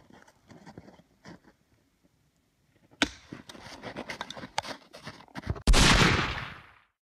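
Footsteps in snow and clothes rustling, with a pause of about a second and a half before they pick up again about three seconds in. Near the end a sudden loud burst of noise fades away over about a second.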